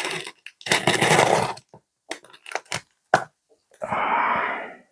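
Packing tape being peeled and torn off a cardboard shipping box: scattered clicks and scrapes, with two longer rasping tears, one about a second in and one near the end.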